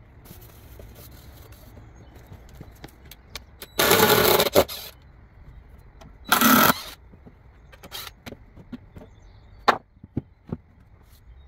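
DeWalt cordless drill run in two short bursts, about a second and then half a second, backing out the screws that hold a wooden guide board to a freshly milled apple slab. Scattered wooden knocks and clatters follow as the boards are handled.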